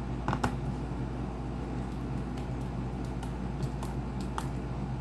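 A few short clicks and taps from handling a laptop, over a steady low electrical hum.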